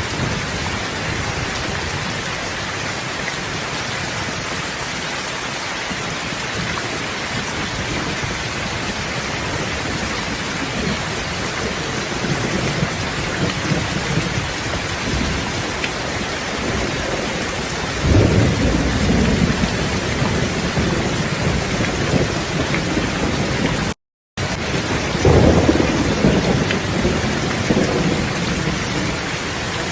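Thunderstorm: steady heavy rain hissing, with rolling thunder that swells in just past the halfway mark and again near the end. A split-second dropout to silence falls between the two rumbles.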